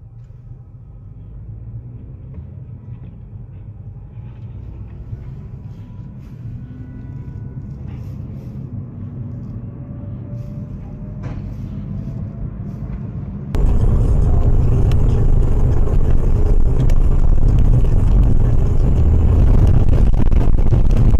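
Car driving, with steady engine and road rumble growing louder and the engine note slowly rising as it gathers speed. About two-thirds through, the sound jumps abruptly to a much louder, steady rumble and noise.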